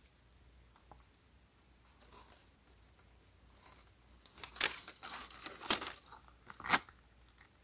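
Near silence for about four seconds, then handling noise: a leather shoe shifted over loose plastic wrap and tissue paper in a shoe box, giving several short rustling, rasping bursts.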